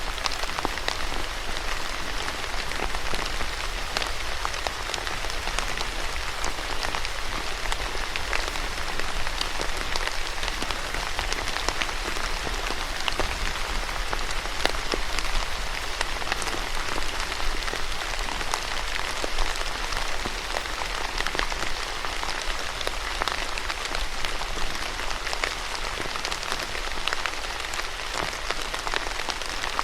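Steady rain falling, a dense even hiss with many individual drops pattering and ticking on a hard surface.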